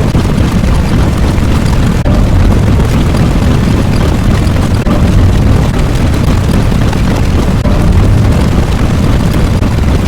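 Loud, continuous deep rumbling sound effect, with a slight break about two seconds in.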